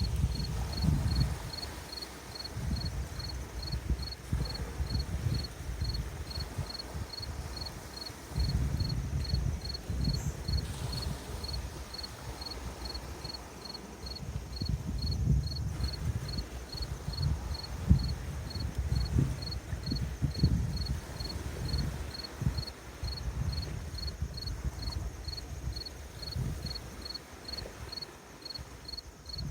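Small lake waves washing on the shore in low, uneven surges every few seconds, with a steady high insect chirp repeating just under twice a second.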